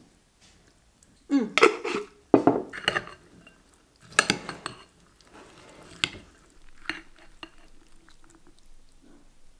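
A metal spoon tossing a dressed salad in a glass bowl: a few bursts of clinks and scrapes of metal on glass, with the soft shuffle of the wet vegetables between them.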